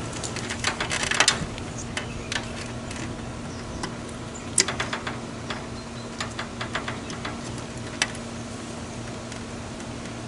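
Scattered sharp clicks and clinks from hands-on work with tools and parts, in clusters, with a louder single click about halfway through, over a steady low hum.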